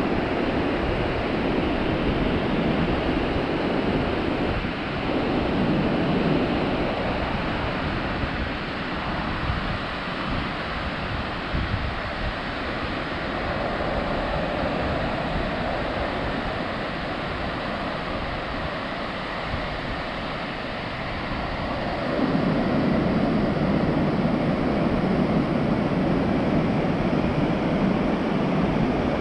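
Pacific Ocean surf washing in on a broad sandy beach, a steady wash of noise with wind buffeting the microphone. It grows louder about three quarters of the way through.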